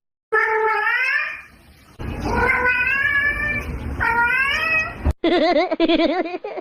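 A cat meowing several times: three drawn-out meows that rise in pitch, then a longer wavering call near the end.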